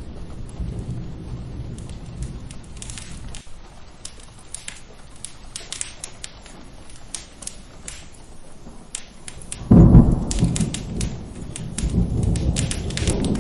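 Steady rain with thunder: a low rumble fades out in the first half, then a loud thunderclap breaks about ten seconds in and rolls on to the end. Sharp fireplace crackles pop throughout.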